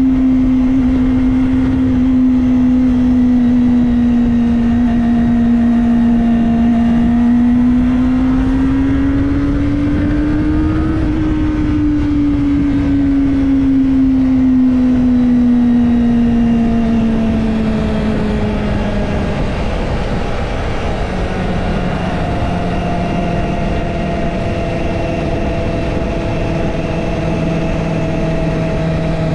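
Kawasaki Ninja ZX-25R's 249 cc inline-four engine running at steady cruising revs under heavy wind rush on the microphone. The engine note rises a little about ten seconds in, then falls gradually over the next several seconds as the bike eases off, and settles at a lower, quieter pitch.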